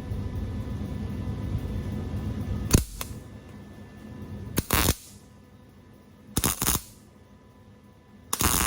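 Welder laying three short tack welds, each a crackling burst of under half a second, roughly two seconds apart. Before them a low steady rumble cuts off with a sharp click about three seconds in.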